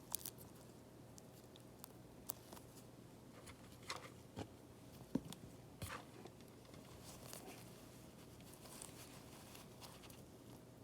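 Faint, scattered small clicks and light scraping of a repair tool working at an iPad mini 5's home button ribbon cable, which is stuck in adhesive.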